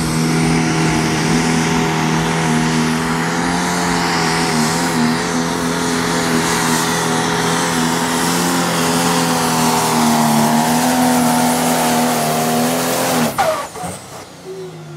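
Limited Super Stock pulling tractor's turbocharged diesel engine running flat out under load as it drags the weight-transfer sled down the track, a loud steady drone. About 13 seconds in it cuts off abruptly as the run ends.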